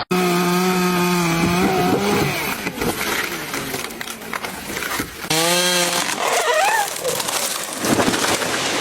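Chainsaw running at high revs, easing off about two seconds in, then a stretch of rough, unpitched noise before the saw is revved up and let down again briefly about five seconds in.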